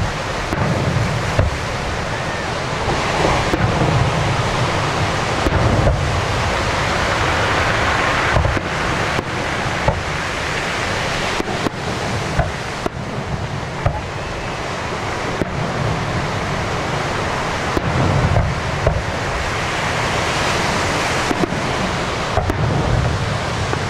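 Aerial fireworks display: many sharp shell bursts in quick succession over a continuous crackle and rolling low booms.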